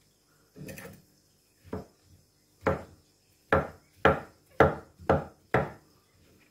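A cleaver chopping large mushroom caps on a wooden cutting board: a soft rustle of handling near the start, then about seven sharp knocks of the blade on the board. The knocks come faster in the second half, about two a second.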